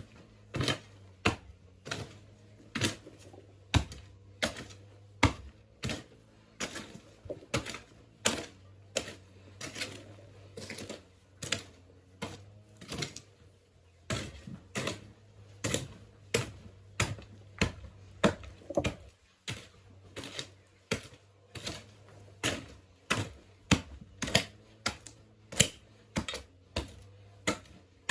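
A hand tool striking over and over, about two sharp strikes a second, steady through the whole stretch.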